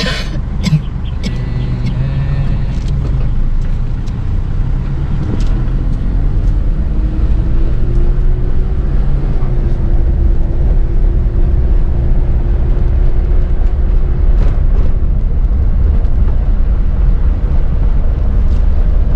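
Engine and road noise of a moving car speeding up, with a steady low rumble and an engine tone that rises slightly about seven seconds in, then holds.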